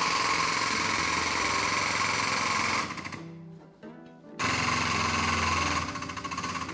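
Air-over-hydraulic pump running to drive the frame machine's pulling ram, a steady fast mechanical chatter as the chain draws on the crushed rear of the car. It runs for almost three seconds, stops for about a second and a half, then runs again with a faster pulsing near the end.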